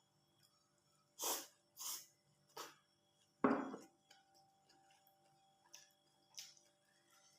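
A few short, breathy mouth noises from eating close to the microphone. Four come in the first four seconds, the last and loudest about three and a half seconds in, and two fainter ones follow later.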